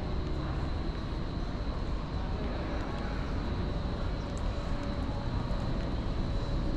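Steady outdoor urban background noise, mostly a low rumble, with a thin steady high tone running through it.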